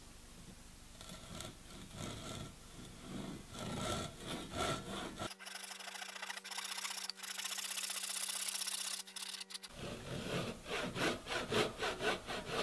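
Japanese handsaw cutting a wooden block by hand: rapid, repeated rasping saw strokes that start faint and grow louder. In the middle, for about four seconds, the strokes blur into one continuous high hiss with a faint hum under it, then separate strokes come back.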